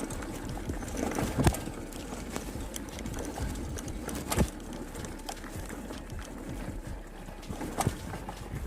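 Mountain bike ridden over a rough dirt trail: steady rolling and rattling, with a few sharp knocks about a second and a half, four and a half, and eight seconds in.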